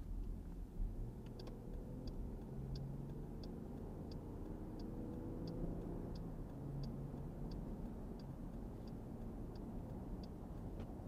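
Car turn-signal indicator clicking steadily, about one and a half clicks a second, stopping near the end, over the engine and road noise inside the cabin as the car accelerates up to highway speed, the engine's pitch rising.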